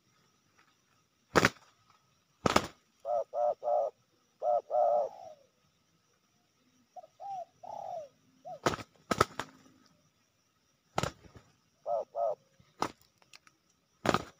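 Spotted doves cooing in phrases of several short notes, some ending in a falling note, broken up by about seven sharp wing slaps as two of the doves fight.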